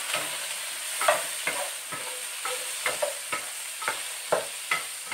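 Shrimp sizzling in hot oil in a nonstick wok while a wooden spatula stir-fries them, scraping and tapping the pan about two to three times a second. The sizzle eases slightly as it goes.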